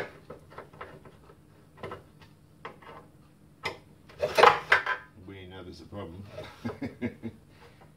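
Metal parts of a lawn mower being handled and adjusted: scattered clinks and knocks, with one louder, ringing metallic clatter about halfway through.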